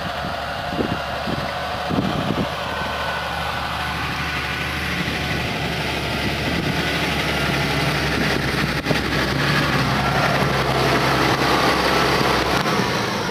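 Valtra T234 Versu tractor's diesel engine running steadily under load while ploughing, growing louder as the tractor comes closer, with a few knocks in the first couple of seconds.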